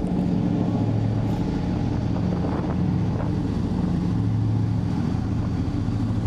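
Steady low drone of a car ferry's machinery, a constant hum made of a few low tones.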